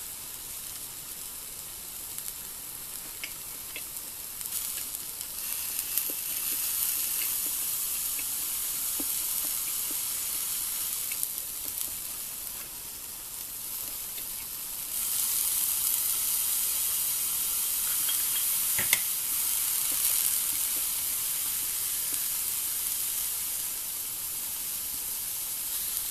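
Vegetables (bean sprouts, cabbage and a shiitake mushroom) sizzling on a hot iron griddle plate over a portable gas stove: a steady hiss with occasional small pops and crackles, louder from about halfway through.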